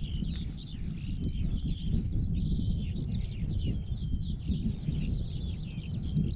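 Several songbirds singing at once: a dense chorus of quick chirping notes over a steady low rumble.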